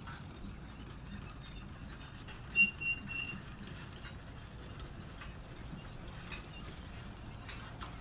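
Manure spreader running: a steady low rumble under an irregular mechanical clatter. A couple of short, high squeaks come about two and a half seconds in, the loudest sounds here.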